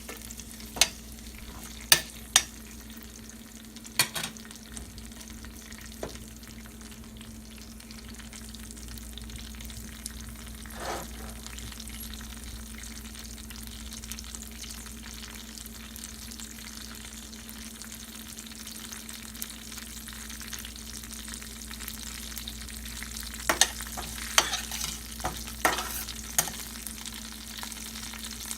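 Tempering spices (mustard seeds, dals, dried chillies, garlic and curry leaves) sizzling steadily in hot coconut oil as they are stirred and fried until golden. Sharp clicks come every second or two at the start, with a cluster of them near the end, over a steady low hum.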